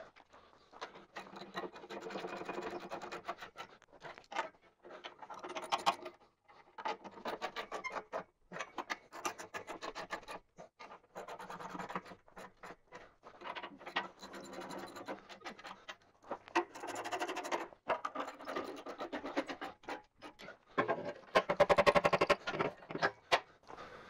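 Ratcheting socket wrench clicking in repeated short bursts of rapid clicks, the loudest near the end, as the armor bolts holding a hammer mill's screen are tightened down.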